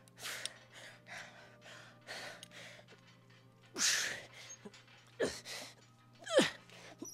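A man breathing hard through a set of heavy lifting, with short sharp breaths about once a second and louder strained grunts about four, five and six and a half seconds in.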